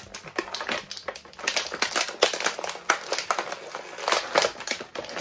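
Plastic action-figure packaging being pulled open by hand, crinkling with a quick, irregular run of clicks and snaps.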